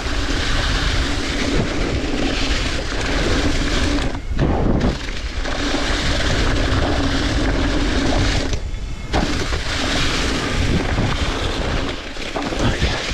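Sawmill machinery running with a steady hum and a loud rushing noise, dropping away briefly twice.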